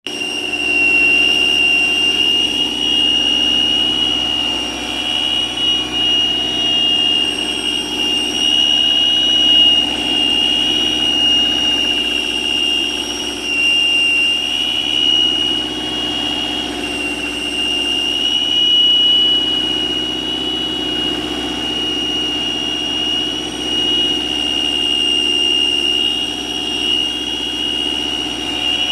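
A bearing whistling: a steady high-pitched whistle that wavers slightly in pitch, over a running engine.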